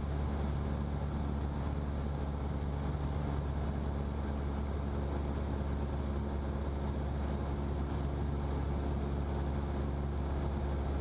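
Cessna's single-engine piston engine and propeller droning steadily, heard inside the cockpit, with an even low hum and no change in pitch or loudness.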